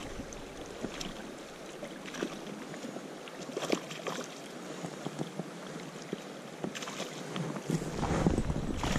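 Steady rush of a fast-flowing river, with a few short splashes from a hooked grayling at the surface. Wind rumbles on the microphone near the end.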